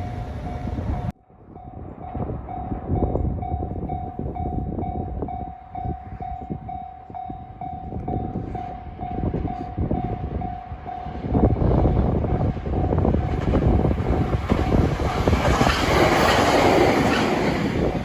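Japanese level-crossing warning bell dinging steadily, a little over twice a second. Then a 521 series electric train comes up and passes over the crossing, its running noise growing louder from about two-thirds of the way in and drowning out the bell.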